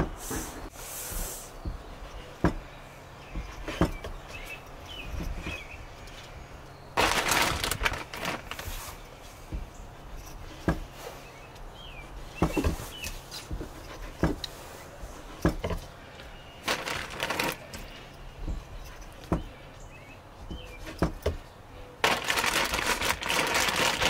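A steel cleaver knocks on a wooden cutting board at irregular intervals as thick pieces of raw conch meat are sliced open. Three longer stretches of rustling noise come and go, and faint bird chirps sound now and then.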